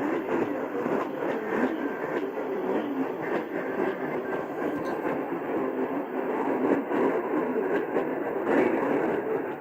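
AM radio reception noise: a steady hiss of static over a weak station signal, with the narrow, muffled sound of AM broadcast audio and a faint voice buried underneath.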